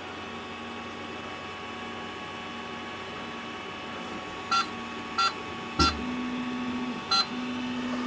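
Creality Ender 6 3D printer just switched on: its fans and power supply hum steadily, and about halfway through four short electronic beeps sound from the printer, with a low thump alongside the third.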